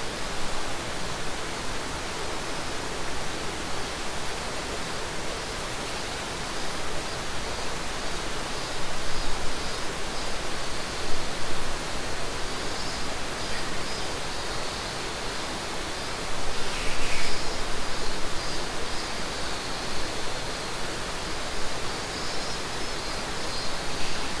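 Mountain river rushing steadily, with cicadas buzzing faintly and high above it.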